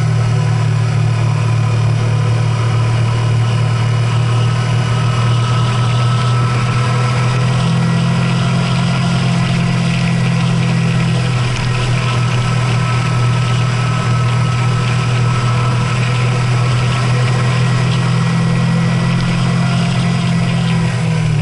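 A motor vehicle's engine running at a steady pitch while under way, with a continuous hiss of road and wind noise.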